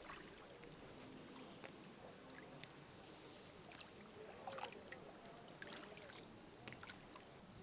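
Faint river-bank ambience: small waves lapping at the shore, with scattered soft splashes and ticks.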